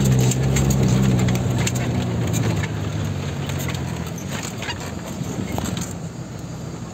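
Vehicle engine running with a low hum while the vehicle jolts along a rough dirt road, with scattered rattles and knocks; the engine hum fades out about three to four seconds in.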